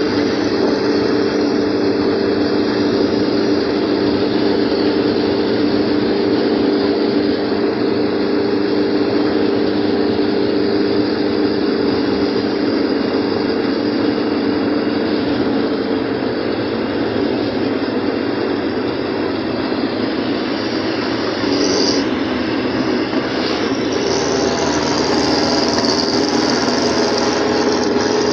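Engine and road noise heard inside a vehicle travelling at a steady speed, with an even, unchanging hum.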